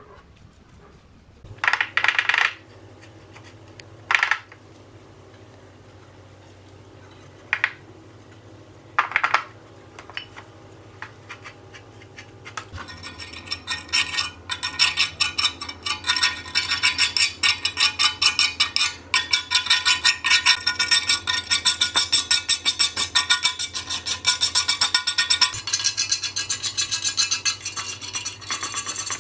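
A motor-driven wire brush running against rusty metal. At first it touches the metal in a few short bursts, then after about twelve seconds it scrubs steadily, a dense scratchy rasp full of fast ticks.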